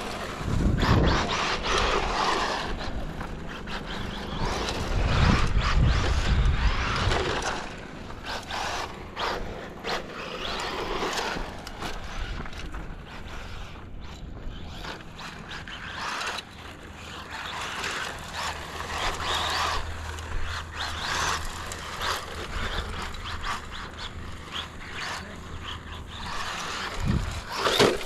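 Brushless electric motor of a 1/10 Tamiya XV-02 RC rally car whining, rising and falling in pitch again and again with the throttle as it drives a dirt track. There are a couple of low rumbles in the first seven seconds.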